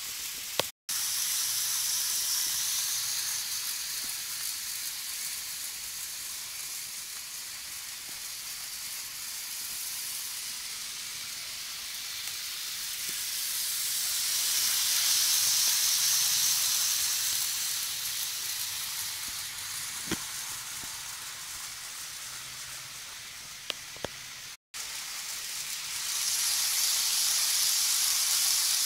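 N-scale model trains running on the layout's track: a steady rushing hiss of small wheels and motors that swells as a train passes close to the microphone, once around the middle and again near the end. It cuts out for an instant twice.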